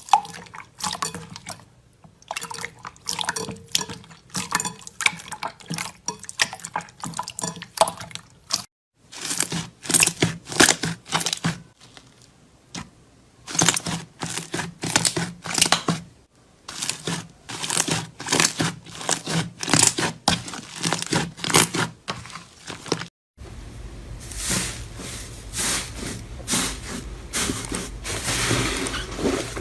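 Slime being squeezed and poked by hand: dense runs of wet clicks, pops and crackles from air pockets. The runs are broken by several abrupt cuts.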